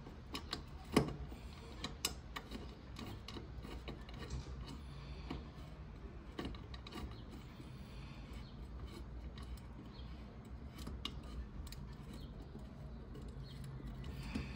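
Small irregular metallic clicks and ticks from tightening a screw on an MG TD headlamp, the sharpest about a second in, over a steady low hum.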